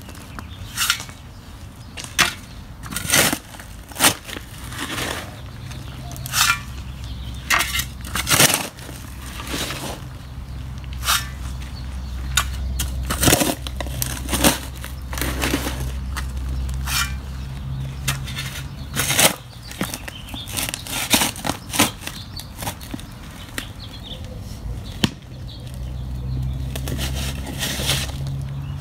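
Steel shovel digging into hard-packed, rocky soil: repeated irregular strikes as the blade is driven in, crunching and scraping against stones as soil and rocks are levered out. A low steady hum sits underneath for much of it.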